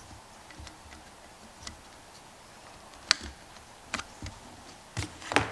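Scattered light clicks and taps of parts and cord being handled on a workbench, a few at first and several close together in the second half; the dryer motor is not yet running.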